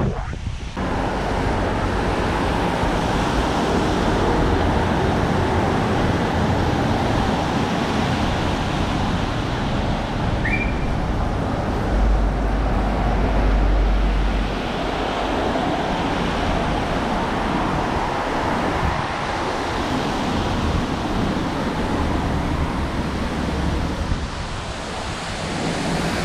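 Steady wash of wind on the microphone mixed with traffic on a wet road. A heavier low buffet of wind hits the microphone for a couple of seconds about halfway through.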